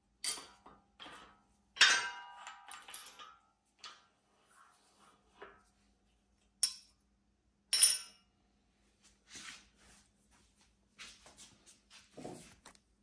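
Metal clanks and clinks from a barrel vise being loosened and opened and the barreled rifle action lifted out of it. The loudest clank, about two seconds in, rings briefly. Sharp clinks come again around seven and eight seconds in, with softer handling rattles between and a dull thump near the end.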